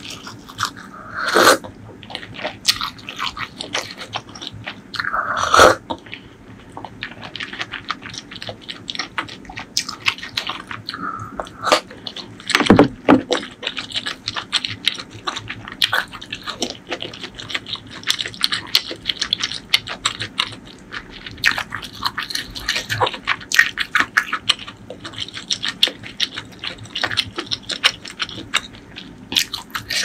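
Close-miked eating sounds: chewing with many small mouth clicks, broken by a few louder slurps from a bowl of broth in the first several seconds and once more about halfway through.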